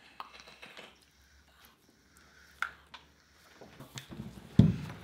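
Quiet breathing as a person draws on an e-cigarette and then exhales the vapour, with a sudden loud puff of breath near the end.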